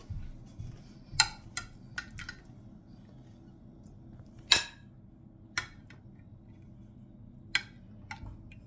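A metal serving spoon clinking against a plate and a glass baking dish while food is served, about eight sharp separate clinks, the loudest about halfway through.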